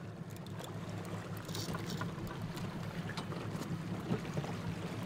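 Outboard boat motor running steadily, with water rushing and splashing along the hull and scattered short clicks.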